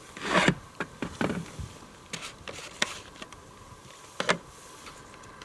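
Handling sounds: a short rustle about half a second in, then a scattered series of light knocks and clicks.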